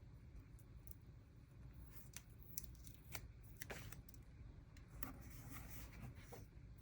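Faint rustling and small scattered clicks of paper and sticker sheets being handled at a craft table, getting busier from about two seconds in.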